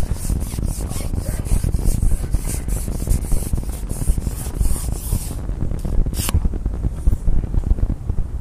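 Wind buffeting the microphone with a low, fluttering rush, a rustling hiss over it for about the first five seconds, and one sharp click about six seconds in.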